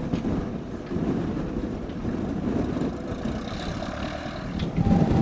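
Cessna 172S Skyhawk SP's four-cylinder Lycoming engine idling as the plane taxis slowly, a low uneven rumble that swells briefly near the end.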